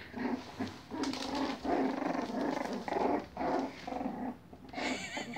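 Young puppies growling and grunting in short bursts as they jostle to nurse, with a brief high squeal near the end.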